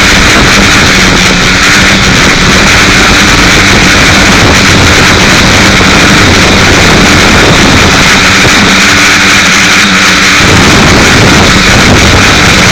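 Quadcopter motors and propellers heard through the onboard keychain camera's microphone: a loud, distorted, steady whirring hiss in flight, rougher in the low end from about ten seconds in.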